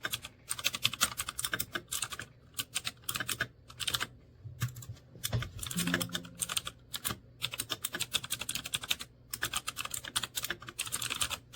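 Typing on a mechanical keyboard with red (linear) switches: quick runs of clacking keystrokes broken by short pauses.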